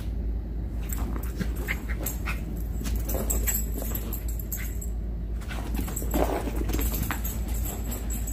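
A small dog making a few short vocal sounds while playing with a plush toy, the clearest about six seconds in. Under it run a steady low rumble and scattered clicks from a handheld phone being moved.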